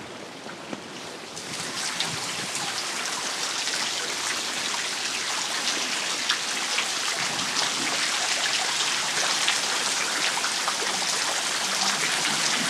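Groundwater seeping from a high coastal cliff and falling in many drops, like rain, onto the stones below. It grows louder over the first two seconds, then keeps up a steady dripping.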